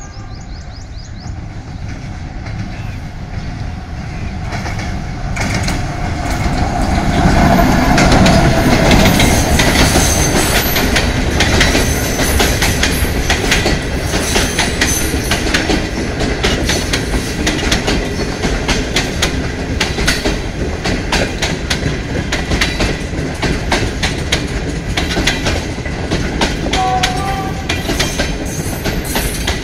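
GEU-40 diesel-electric locomotive of a passenger express approaching and passing at slow speed, loudest about eight seconds in. The coaches then roll by with a steady clickety-clack of wheels over the rail joints.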